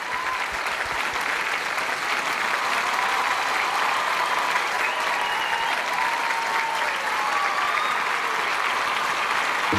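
Large live audience applauding steadily.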